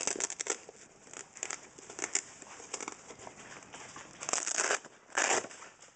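Packaging bag crinkling and rustling as it is handled and opened to get at a power supply's modular cables, in quick irregular crackles with two louder bursts of rustling near the end.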